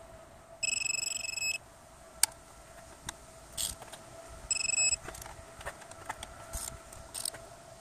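Electronic torque wrench beeping to signal that a cylinder-head bolt has reached its set torque, on the 25 ft-lb first pass: a beep of about a second half a second in, a short beep around four and a half seconds, and another long beep at the end. Light metallic clicks and taps of the socket on the bolts come between the beeps.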